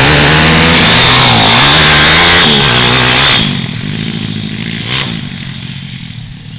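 Pit bike engine revving hard close by, its pitch rising and falling repeatedly as the throttle is worked. About three and a half seconds in it drops abruptly to a fainter, more distant pit bike engine, with a short click near the end.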